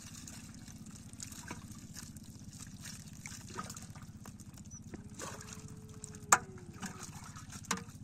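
Shallow water trickling, dripping and splashing as hands pick fish out of a net and drop them into plastic bowls, with scattered small knocks and one sharp click a little past the middle.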